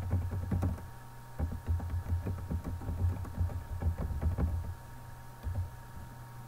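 Typing on a computer keyboard: a quick run of keystrokes that stops about five seconds in, with one more click shortly after, over a faint steady electrical hum.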